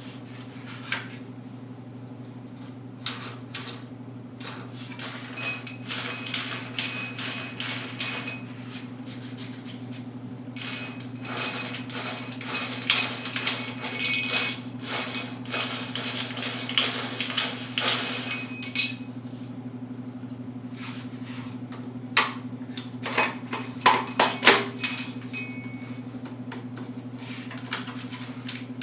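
Three spells of rapid clinking knocks with a ringing metallic or ceramic edge, over a steady low hum.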